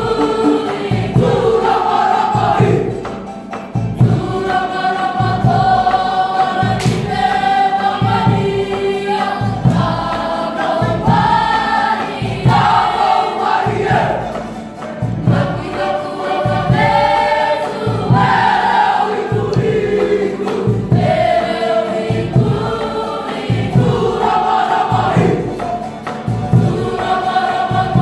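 A large group of children singing a Cook Islands song together in chorus, over strummed ukulele and guitar and a steady, even low beat.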